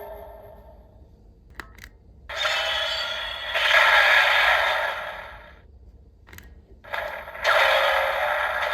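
Button clicks on a DX Arc Cube Premium toy, each followed by a synthesized sound effect of a few seconds from its small built-in speaker; two effects play in turn.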